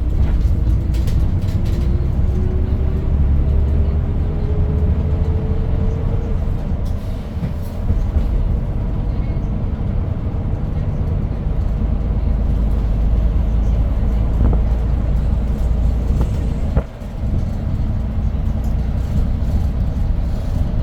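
Hyundai New Super Aerocity city bus with its C6AF CNG engine running under way, heard from inside the cabin as a steady, heavy rumble. A whine rises slowly in pitch over the first six seconds as the bus gathers speed, and the sound drops briefly about seventeen seconds in.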